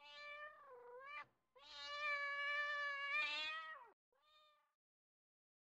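A cat meowing three times: a short meow, a long drawn-out one about a second and a half in, and a brief faint one near the end.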